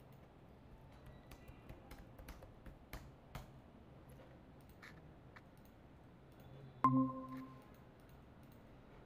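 A run of faint computer clicks, then a short electronic chime about seven seconds in that rings and fades within a second. The chime is the sound of joining a Google Meet video call.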